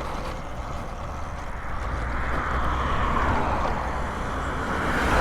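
Steady wind and rolling noise from riding a Talaria Sting R electric dirt bike, with a constant low rumble that grows a little louder midway.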